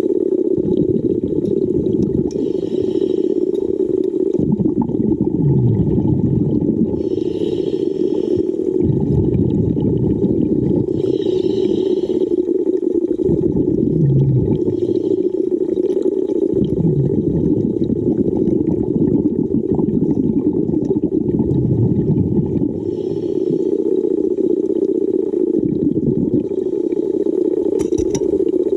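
Water sound over a steady low hum, with low rushing swells and a brief hiss that comes back about every four seconds.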